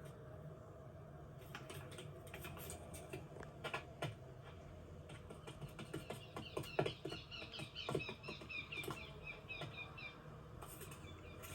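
Animated-film sound effects: scattered light clicks and taps, with a fast run of short high chirps through the middle of the stretch.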